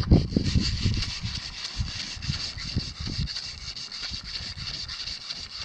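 Hand snow saw from a Backcountry Access shovel cutting into hard-packed snow to free a block, a steady run of quick back-and-forth scraping strokes.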